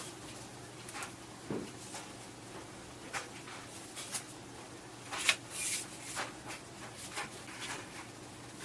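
Scattered light clicks, taps and brief rustles of a fiberglass takedown bow's limbs and riser being handled, with a short scraping rustle about five and a half seconds in.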